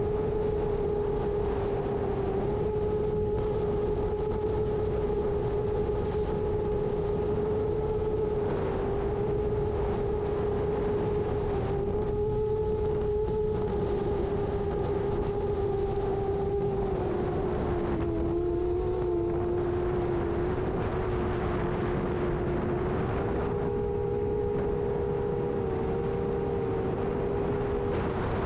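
7-inch long-range FPV quadcopter's motors and propellers giving a steady pitched hum that shifts slightly in pitch and sags briefly past the midpoint. A constant rushing noise of strong gusty wind runs under it.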